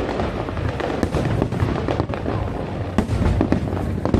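Aerial fireworks going off in quick succession: dense crackling and popping over a continuous low rumble of booms, with a few sharper, louder cracks, one about three seconds in.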